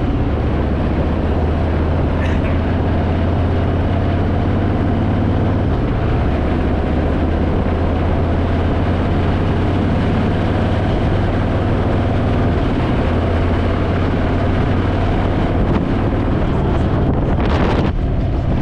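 Harley-Davidson Fat Boy's V-twin engine running steadily at highway cruising speed, with wind rushing over the microphone. A short louder whoosh of air comes near the end.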